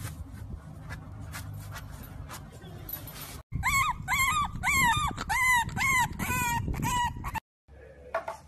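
French bulldog puppy howling in a quick run of about eight short, high calls, each rising and then falling in pitch, starting about three and a half seconds in. Before it there is only faint low noise with a few soft clicks.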